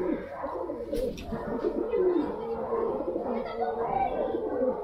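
Several birds calling at once, many low, curving calls overlapping without a break.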